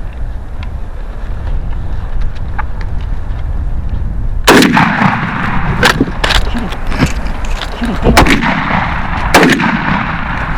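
A string of shotgun blasts, about five or six over five seconds, the first about four and a half seconds in, as two hunters fire repeatedly at a wild turkey gobbler at close range.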